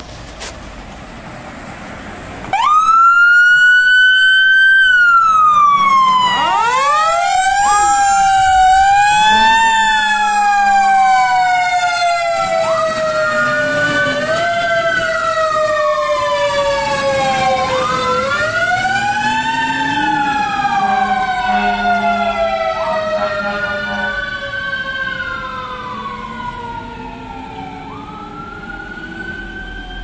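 Fire truck sirens starting up about two and a half seconds in, each tone climbing quickly and then sliding slowly down, repeating every few seconds. A second siren overlaps from a few seconds later, and the sound fades gradually as the trucks pull away.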